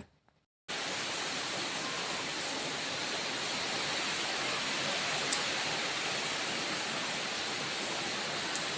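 Heavy rain pouring down outside, a steady even hiss that cuts in suddenly under a second in. Two faint ticks come through it later on.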